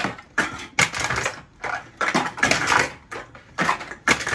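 Aluminium drink cans being crushed in a wall-mounted Can Ram lever can crusher: a quick series of sharp crunches and metal clanks, several a second.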